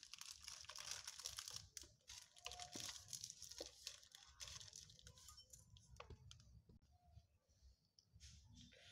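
Faint crinkling and rustling of a thin plastic bag being handled and squeezed, densest in the first two seconds, then thinning out to a few scattered light clicks.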